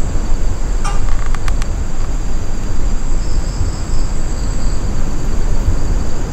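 Wind rumbling on the microphone, with a steady high-pitched drone of crickets or other night insects above it and a few sharp clicks about a second in.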